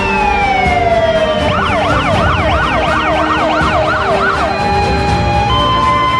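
Fire engine siren: a long tone gliding down in pitch, then a fast rising-and-falling yelp, about three sweeps a second, which stops about four and a half seconds in. Background music with held chords plays underneath.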